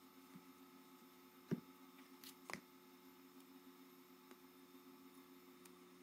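Near silence: a faint steady hum, with two light clicks or taps, one about a second and a half in and another a second later.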